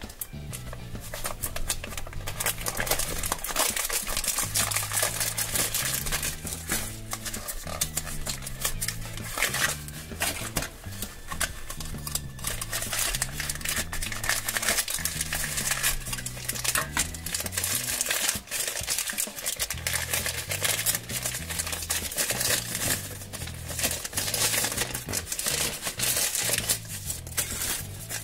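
Plastic toy packaging crinkling and crackling as hands unwrap and handle it, with small plastic clicks, over background music with a repeating bass line.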